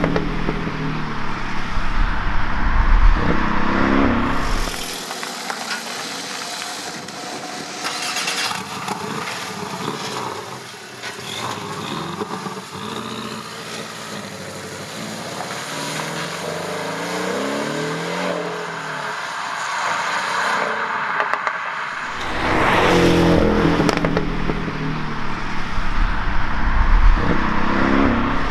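Porsche 718 Cayman GTS's turbocharged flat-four engine revving and accelerating, its pitch climbing and dropping as it is driven. It runs louder for the first few seconds and again over the last several, with a quieter, thinner stretch through the middle.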